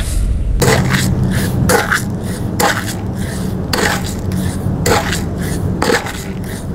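Dried corn kernels poured onto a wire-mesh drying screen, then scraped across it by hand in short rustling strokes about once a second, over a steady low hum.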